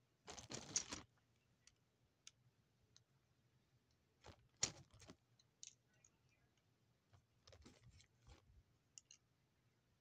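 Plastic Lego bricks handled and clicked together. A short burst of rattling clicks comes first, then a sharp cluster of clicks about four and a half seconds in, and scattered light clicks after that.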